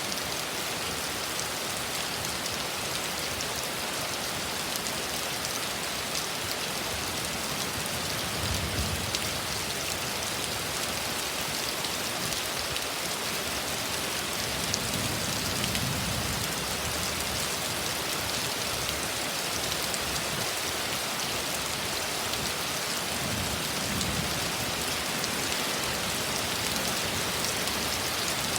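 Heavy rain pouring steadily in a severe thunderstorm, a dense even hiss of drops. Three brief low swells rise under it, about a third of the way in, midway and about three quarters in.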